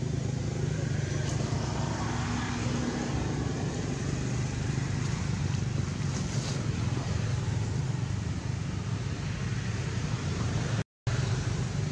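Steady low rumble with an even hiss on top: outdoor background noise with no distinct event.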